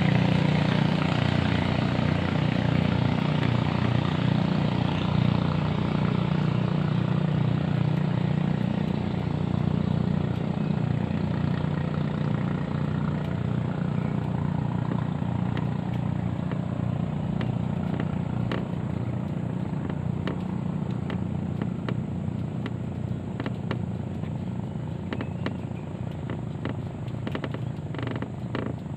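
Boat engine running steadily with a low drone that slowly fades away, as a passing boat moves off. Small clicks and taps come in during the second half.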